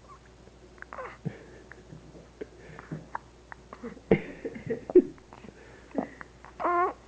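Newborn baby hiccuping: several short, sharp hiccups at irregular intervals, the loudest about four and five seconds in, with small breathy mouth sounds between them. Near the end comes a brief, high, wavering squeal.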